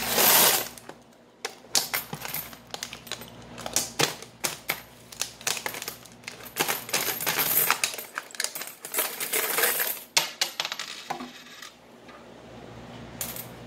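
Metal coins clinking and rattling as they are poured and shaken out of one plastic-bottle coin bank into another. A rush of coins at the start and a longer dense pour a bit past halfway, with scattered single clinks between and a few near the end.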